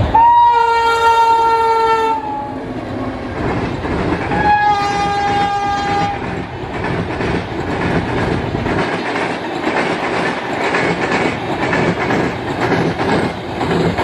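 Electric locomotive horn blowing twice, a long blast of about two seconds, then a second, slightly lower blast of under two seconds, as the train approaches. After that the double-decker coaches roll past, their wheels clattering over the rail joints in a steady rhythm.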